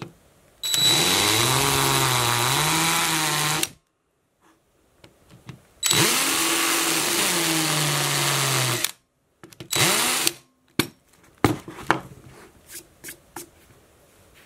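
Power drill with a countersink bit chamfering screw holes in a laser-cut acrylic jig plate. The motor runs in two stretches of about three seconds each, its pitch wavering as the bit cuts, then gives a short third burst, followed by light clicks and knocks as the piece is handled.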